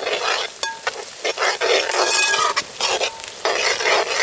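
Chopped onions and dried red chillies sizzling in hot oil in a metal pot, stirred with a steel ladle that scrapes the pot; the sizzle swells and dips with each stroke.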